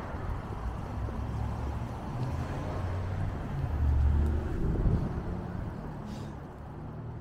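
City street traffic with wind buffeting the microphone: a steady low rumble that swells about four seconds in.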